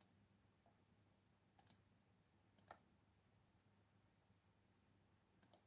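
Faint clicks of a laptop's pointer button as text in a word processor is selected and resized, mostly in quick pairs, over near-silent room tone.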